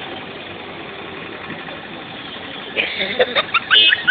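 Auto-rickshaw engine idling with street noise. From about three seconds in, a quick run of short, high chirping notes sounds over it.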